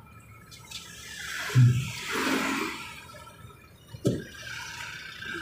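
Road traffic heard from inside a moving vehicle: a rushing whoosh swells about two seconds in and fades, with a dull knock just before it and a sharp click about four seconds in.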